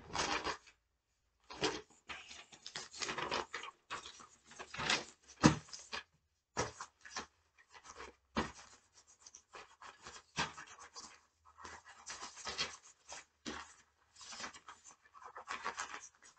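Pencil scribbling hard and fast on paper, in irregular scratchy strokes with short gaps, with one sharp knock about five and a half seconds in.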